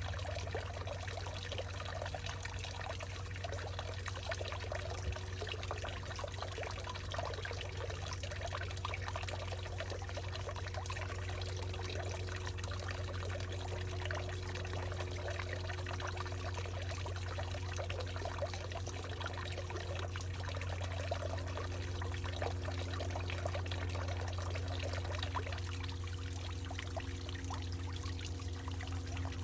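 Water pouring and trickling steadily in a hollowed-out tree, over a constant low hum and a few faint steady tones.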